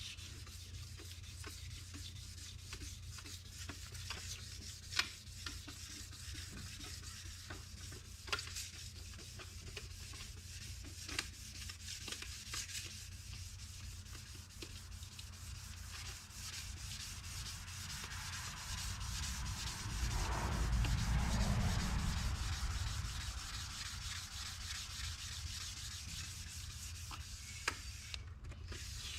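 1,500-grit sandpaper rubbed over stainless steel trim: a steady scratchy rubbing with a few sharp clicks, swelling louder about twenty seconds in. The fine grit is taking out the scratches left by the coarser sanding.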